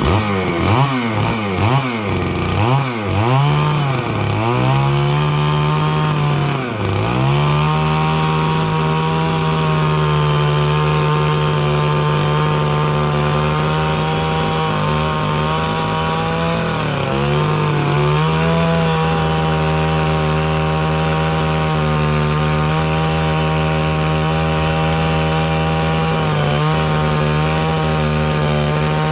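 Stihl 660 two-stroke chainsaw revved up and down several times, then held at a steady high speed through a long rip cut along dry larch, its pitch sagging briefly twice.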